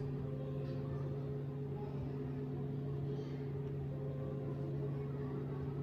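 A steady low hum with a few faint overtones, unchanging throughout.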